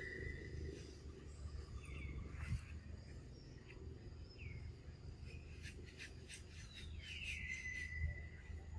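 Faint outdoor ambience: a few short, high chirps falling in pitch, a quick run of clicks past the middle, and near the end a longer high call that slides down and holds, over a low rumble.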